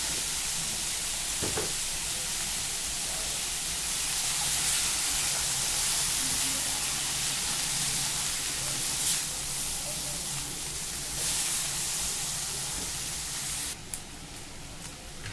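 Sliced onions, tomatoes and green chillies frying in oil in a kadhai, a steady sizzle as they soften, stirred now and then with a silicone spatula. The sizzle drops sharply near the end, with a single click.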